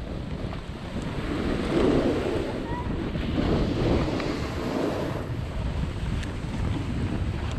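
Wind buffeting the microphone of a camera carried down a ski slope, a steady rushing rumble that swells about two, four and five seconds in.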